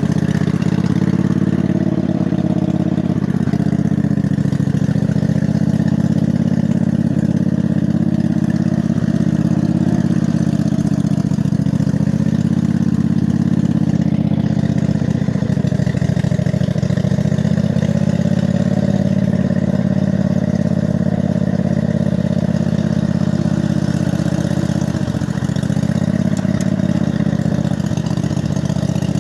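Montgomery Ward lawn tractor engine running steadily as the tractor drives through mud, heard close up from the seat. The engine note sags and recovers a few times as the load changes.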